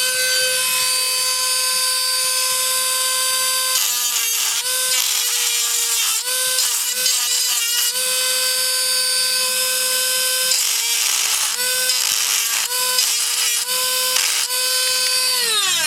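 Small high-speed rotary tool spinning up and grinding the metal tabs off a die-cast toy car chassis. Its steady whine sags in pitch again and again as the bit bites into the metal, then winds down near the end.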